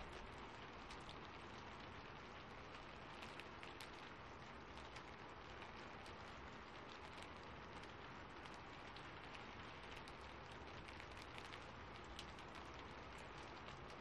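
Faint, steady rain falling, with many scattered sharp ticks and crackles.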